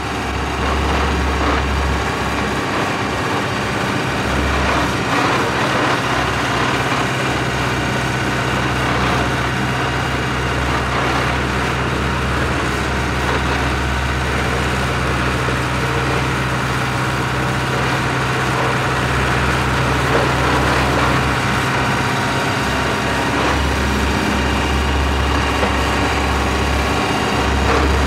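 Four-wheel-drive vibratory roller compactor running steadily, its engine droning evenly with a deep low hum that drops out and comes back several times.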